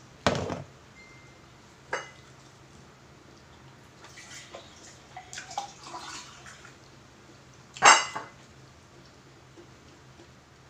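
Utensils and dishes clinking during a meal: a few sharp clatters and small scrapes, the loudest near the end with a brief ring.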